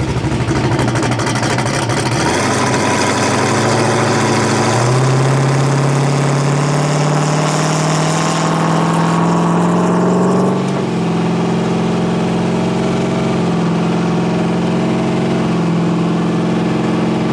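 Turbocharged, LS-swapped 5.3 V8 in a methanol-fuelled Fox Body Mustang, heard driving. The engine note climbs gradually in pitch under acceleration for about ten seconds, then eases off and holds a steady cruise.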